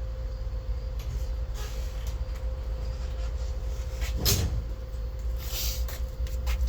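A few knocks and clatters of things being handled, the loudest about four seconds in, over a steady hum and a low rumble.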